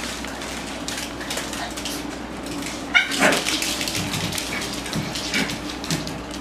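Small dogs whimpering and yipping, with one sharp, high yip about three seconds in, amid scattered light clicks.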